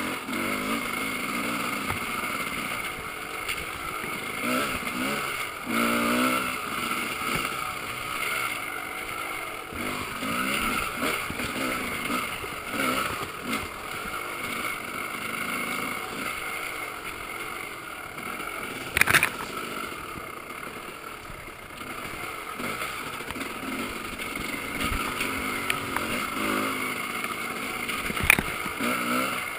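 Off-road dirt bike engine running and rising and falling with the throttle along a trail, muffled through a GoPro's waterproof case. A sharp knock about nineteen seconds in, and a smaller one near the end.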